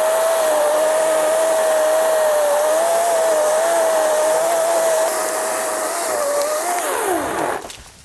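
EGO 56-volt cordless electric chainsaw cutting through a holly trunk: a steady high motor whine that wavers slightly in pitch under load. About seven seconds in, the whine falls in pitch and dies away as the motor winds down.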